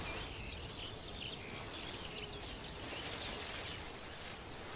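Field ambience of an insect, cricket-like, chirping in a fast, even pulsed rhythm, with faint bird chirps in the first half over a low outdoor background.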